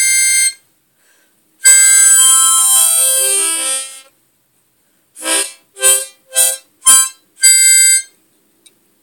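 A 10-hole tremolo harmonica in the key of C being played: a run of notes that stops about half a second in, then after a pause a longer run of stepping notes. Five short separate blown chords follow, then one last held chord near the end.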